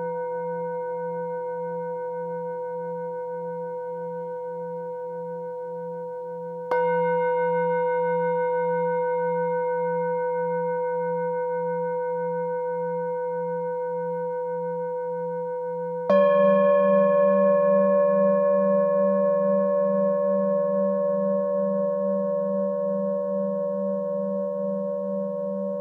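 Singing bowls struck with a mallet, ringing in long, slowly fading tones with a slow pulsing wobble. A fresh bowl is struck about 7 seconds in and another, louder, about 16 seconds in, each sounding over the bowls still ringing.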